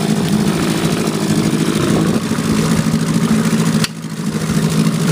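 1972 Evinrude 4 hp Lightwin twin-cylinder two-stroke outboard running steadily, its cover off, a minute into a cold start after a couple of years unused. About four seconds in there is a sharp knock as the cover is set back on, and the sound drops briefly before building back.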